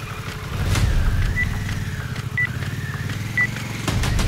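Harley-Davidson Pan America 1250's V-twin engine running, with three short high beeps about a second apart counting down to a drag-race start.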